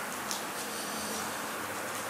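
Steady hiss of outdoor background noise, with a faint tick about a third of a second in.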